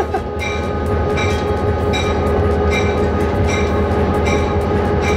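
Diesel-electric locomotive under way, heard from inside its cab: a steady engine drone, with the locomotive bell ringing about every three-quarters of a second.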